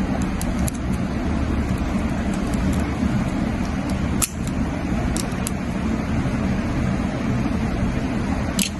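Steady low background rumble with a handful of light, sharp clicks, about a second in, around four to five seconds in and again near the end, from small plastic and metal parts of a plug being handled while it is rewired.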